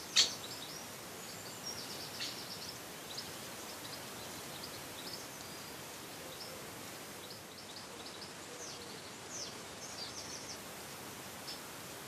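Garden birds chirping in short, high calls scattered throughout, over the steady hiss of a trail camera's microphone, with a single sharp click just after the start.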